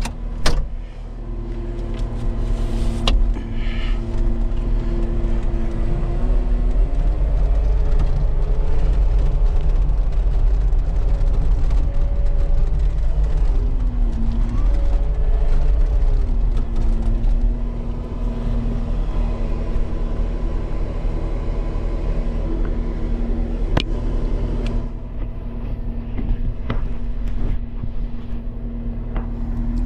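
A large vehicle engine running close by with a heavy low rumble. Its pitch steps up a few seconds in, dips and comes back up around the middle, then holds steady.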